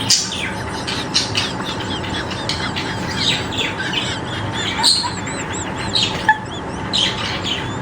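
A bird chirping and calling in a fast run of short, varied chirps, with a string of quick arched whistled notes about five to six seconds in.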